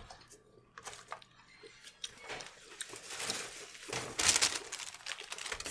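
Rustling and light knocking of things handled on a table, starting about two seconds in and loudest about four seconds in.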